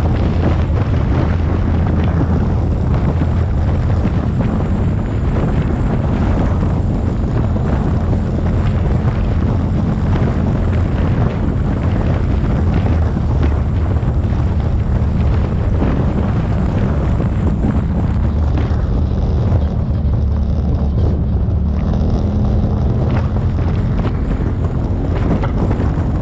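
Off-road vehicle running steadily at speed on a sandy dirt track, with a low, even engine and drivetrain drone and wind buffeting the microphone.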